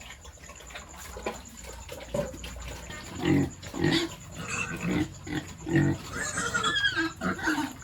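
Pigs grunting in a run of short calls starting about three seconds in, with higher-pitched squealing near the end.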